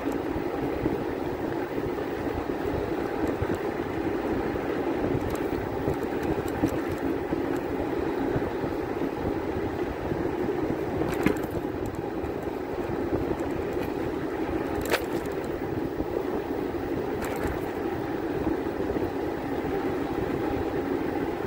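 Steady engine and road noise of a vehicle driving along, with a few faint clicks.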